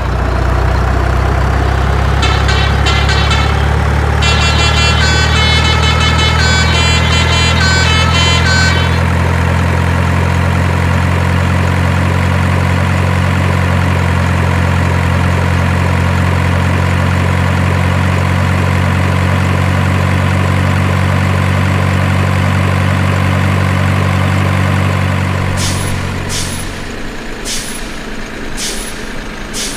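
Truck sound: a steady low engine drone with two quick runs of melodic telolet horn notes in the first nine seconds. The drone stops about 27 seconds in, and short sharp hisses follow about once a second.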